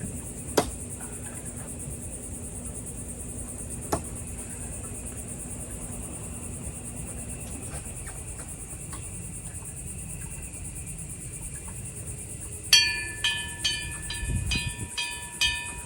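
Thrown knives striking a wooden target board, two sharp knocks about half a second and four seconds in, over a steady chorus of crickets. Near the end a metal bell rings in a quick run of about seven strikes, the loudest sound here.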